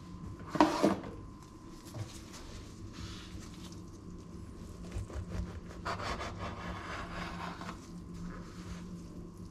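Food being handled on a wooden cutting board: a sharp knock on the board just under a second in, then quieter shuffling and a longer rubbing, scraping noise around six to seven and a half seconds in.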